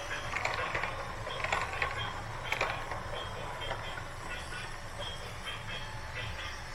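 Small geared motors of a remote-control backhoe loader running, with a steady whirr and scattered clicking and rattling.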